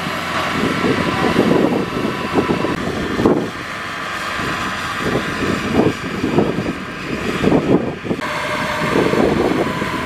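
Kubota crawler rice combine harvester running steadily as it drives on its rubber tracks, with abrupt shifts in the sound about three and eight seconds in.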